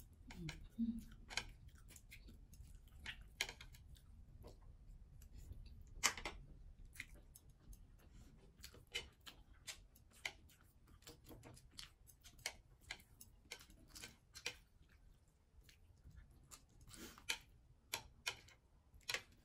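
Faint eating sounds: chewing, with scattered light clicks and taps of chopsticks against ceramic plates, irregular and sometimes in quick runs.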